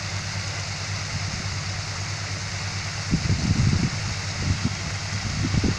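Ring fountain's arched water jets splashing steadily into the basin, an even rushing hiss. An irregular low rumble comes in about halfway through.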